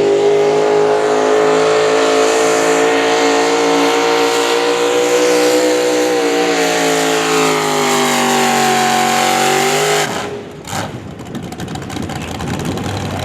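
Pulling vehicle's engine held at full throttle during a pull, its pitch sagging as it loads down. About ten seconds in the throttle is cut and it drops abruptly to a low rumble.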